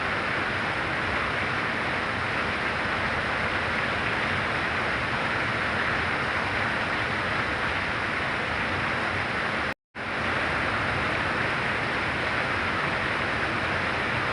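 Very heavy rain pouring steadily as an even hiss. It cuts out to silence for a split second about ten seconds in, then resumes unchanged.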